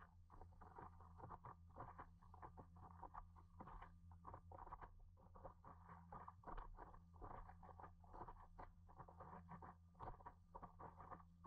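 Faint, rapid, irregular patter of water lapping and splashing against a stand-up paddleboard and the paddle blade as it is paddled through choppy water, over a steady low hum.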